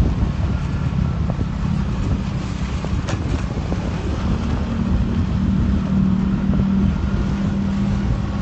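Wind buffeting the microphone over the steady hum of a vehicle engine moving along. The hum grows a little stronger about halfway through.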